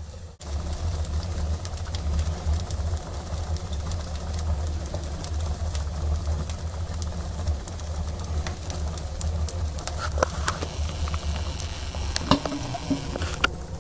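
Wood fire burning in a stove's firebox: a steady low rumble from the draft, with scattered sharp crackles and a few louder pops near the end.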